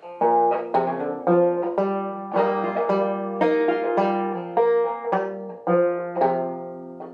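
Open-back banjo played clawhammer style in double C tuning lowered a whole step (F A♯ F A♯ C): a slow phrase of single plucked notes, each left ringing, with a fretted F-shape chord in the run.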